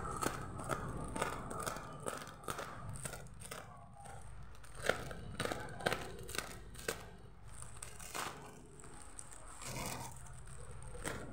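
Black plastic mailer bag being cut with a small blade and torn open by hand, the plastic crinkling and ripping in many short, irregular crackles.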